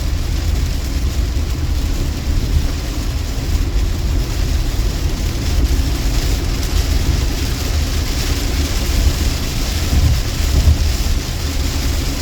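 Steady low rumble of a car driving on a wet highway, with tyre and rain hiss on top, heard from inside the cabin.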